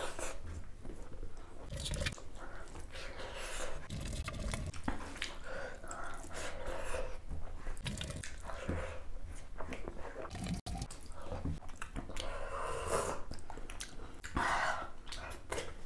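A person eating duck curry and mustard leaf: steady chewing and biting with wet mouth sounds and occasional crunches.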